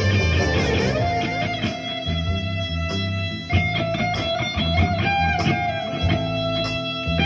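Electric guitar playing a slow blues lead, with plucked notes and string bends, over a steady low bass line.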